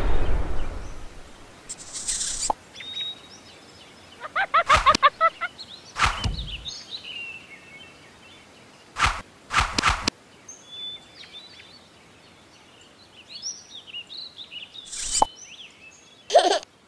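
Sound effects for an animation: a loud rushing noise fades away in the first second or so, then comes a sparse run of separate pops and clicks with small high chirping glides in between. About four and a half seconds in, a quick warbling trill.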